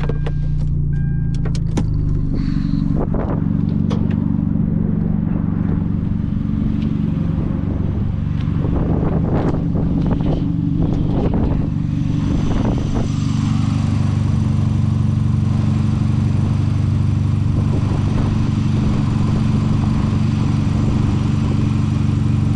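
The 2010 Hyundai Genesis Coupe's turbocharged 2.0-litre four-cylinder engine running steadily, with scattered clicks and knocks through the first half as the boost-controller bolt is backed out. The wastegate is not opening, so boost is not being regulated.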